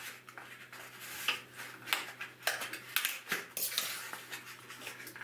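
Scissors snipping at a long, narrow cardboard box, then the box handled on a table: a string of sharp clicks and scrapes.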